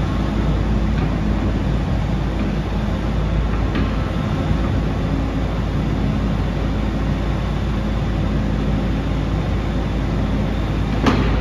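Kobelco midi excavator's diesel engine running steadily under hydraulic load as the upper structure slews and the boom moves, with a sharp clank near the end.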